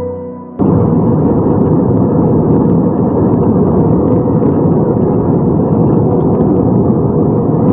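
Steady, loud jet-engine and airflow noise heard inside an Airbus A320's cabin, cutting in abruptly about half a second in after a few notes of soft music.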